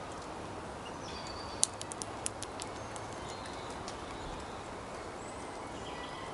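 Grey squirrel gnawing at a nut held to its mouth: a quick run of about six sharp cracks starting about one and a half seconds in, the first the loudest, then a few faint ticks over a steady background hiss.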